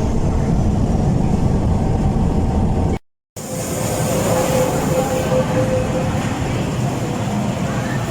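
Steady rumble of a moving vehicle. The sound cuts out briefly about three seconds in, then resumes with a faint steady whine over the rumble.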